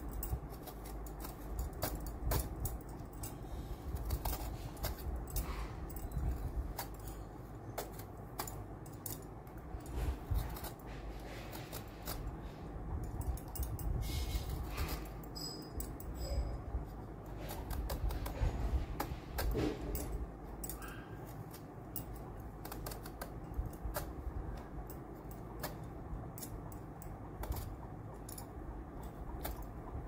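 A hand vegetable peeler scraping the skin off a bottle gourd in quick, irregular strokes, each one a short rasping click.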